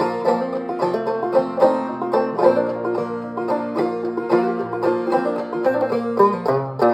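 A banjo playing a lively tune in quick plucked notes over steady low bass notes, ending on a strummed chord that rings out.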